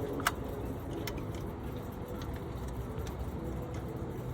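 Two sharp metallic clicks, one about a quarter second in and a weaker one about a second in, from tools and brake parts being handled during a brake pad change, over a steady low background rumble.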